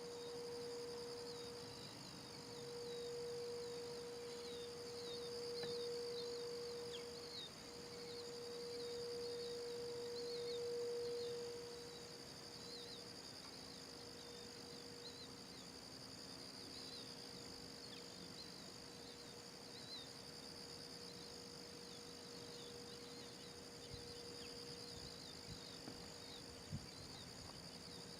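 A distant Whelen 4004 warning siren holds one steady tone that swells and fades every four to five seconds, then carries on steadier and fainter from about halfway. Crickets and other insects chirp and drone throughout.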